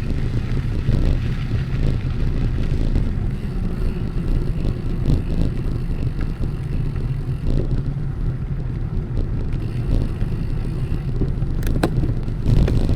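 Wind rushing over the microphone and tyre rumble from a moving bicycle, a steady low noise, with a couple of sharp clicks about a second before the end.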